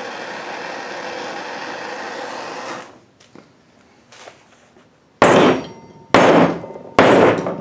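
Propane torch hissing steadily for about three seconds, then stopping. Then three hard knocks with a short metallic ring, about a second apart, as the heated Chevy pinion shaft is banged on the wooden workbench to try to shock its pressed-on inner bearing loose.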